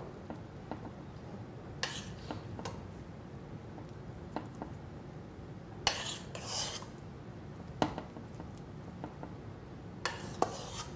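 Metal spoon scooping mashed potato, clinking and scraping against a stainless steel pot and a ceramic dish: scattered light clinks, with a longer scrape about six seconds in.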